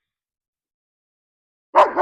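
Dead silence, then near the end a dog barks once, suddenly and loudly.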